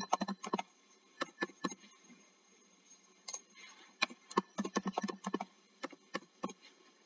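Typing on a computer keyboard: short runs of key clicks with pauses between them, as a password is typed and then typed again.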